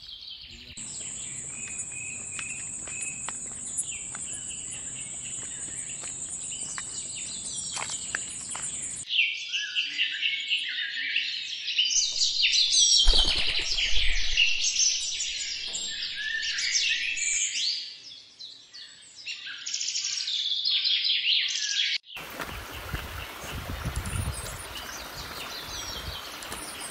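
Wild birds chirping and calling, a dense chorus at its busiest in the middle, over a steady high insect-like buzz during the first third. Near the end it cuts suddenly to an even outdoor noise.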